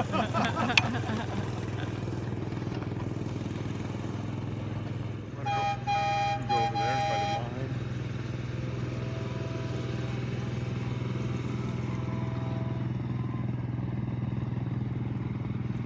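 A small engine runs steadily, drawn in a low drone, from a ride-on speeder car on a miniature railway. About six seconds in, a miniature train's whistle gives a few short loud blasts, and fainter whistle tones follow a few seconds later.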